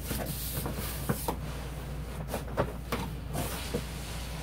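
Cardboard shipping box being opened by hand: its flaps rustling and scraping, with a series of short knocks as it is handled.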